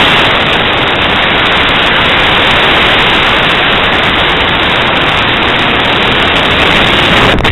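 Model rocket motor's long burn: a loud, steady rushing hiss that starts suddenly and cuts off shortly before the end.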